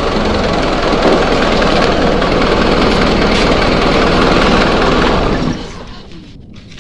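Isuzu Panther diesel engine idling steadily just after a rev, its alternator belt freshly tightened to stop the squeal on acceleration; about five and a half seconds in the engine sound stops.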